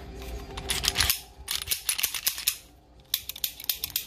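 SCCY CPX-2 9mm pistol being worked by hand after reassembly: quick runs of sharp metallic clicks and rattles from the slide and action, in three bursts with short pauses between.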